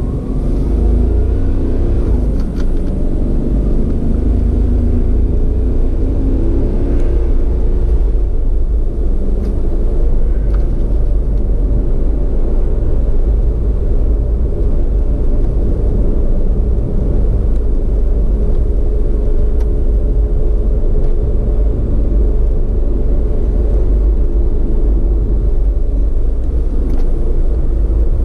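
Vehicle driving on a winding road, heard from on board: a steady, loud rumble of engine, road and wind noise. The engine note rises in pitch in the first couple of seconds as it speeds up.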